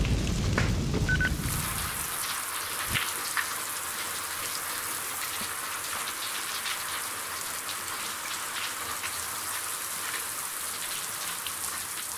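Rain sound effect in the show's soundtrack: a steady hiss of rain with scattered drop-like ticks. A low rumble under it fades out in the first two seconds.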